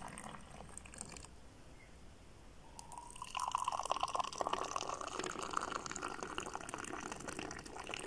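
Moroccan mint tea poured from a height out of a silver teapot's spout, the thin stream splashing into a glass. The pour stops about a second in and starts again about three seconds in, running on steadily as the next glass fills.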